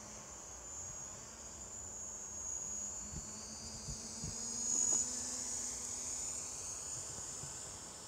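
High-pitched whine of a DJI Mavic Pro quadcopter's motors and propellers in flight, heard from a distance. It swells and fades as the drone changes speed and is loudest about five seconds in.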